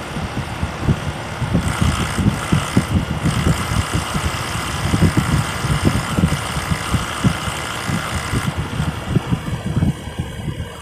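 SmartComfort heat pump running with a rapid low pulsing throb. A hissing rush joins in about a second and a half in and drops away near the end.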